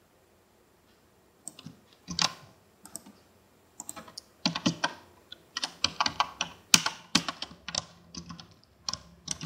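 Computer keyboard keystrokes, irregular clicks that begin about a second and a half in and come faster and closer together in the second half.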